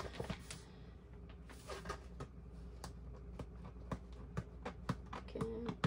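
Plastic-covered diamond painting canvas rustling and crinkling against a plastic storage folder as hands slide and smooth it in, giving many small irregular crackles and clicks.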